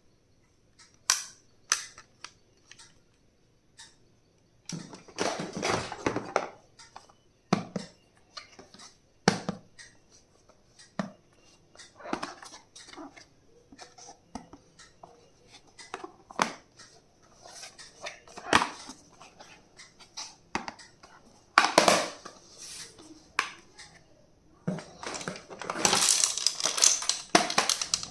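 Small plastic stationery items and their packaging handled and unpacked: scattered clicks and taps, with two longer bursts of crinkly rustling, one about five seconds in and one near the end.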